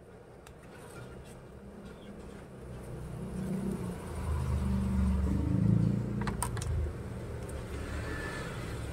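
A low vehicle engine rumble that swells to its loudest about five seconds in and then eases off, like a motor vehicle passing by. A few sharp clicks come near the middle.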